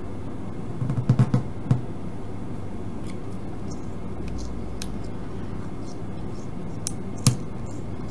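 Steady hiss and low hum, with a quick cluster of clicks about a second in and a single sharp click near the end, as fingers handle the small circuit board and wires of a switched-on AM radio kit.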